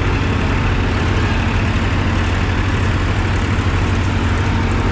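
New Holland 3600 All Rounder tractor's diesel engine running steadily at an unchanging engine speed, heard from on the tractor, with other tractor engines running alongside.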